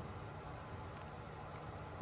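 Quiet steady background noise: an even hiss with a faint low hum, the room tone of a small boat cabin.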